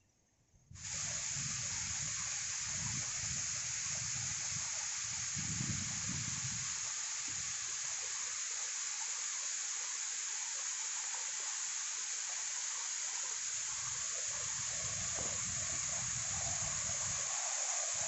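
Waterfall rushing steadily down a rock face into a pool, an even hiss of falling water that starts abruptly about a second in.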